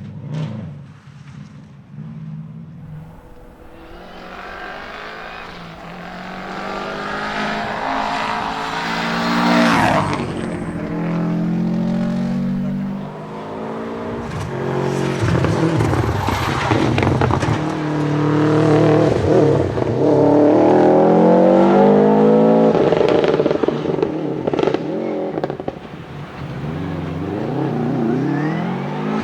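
Subaru Impreza 555 Group A rally car's turbocharged flat-four boxer engine driven hard, its pitch climbing and dropping again and again through the gear changes. It is loud around ten seconds in and loudest around twenty seconds in.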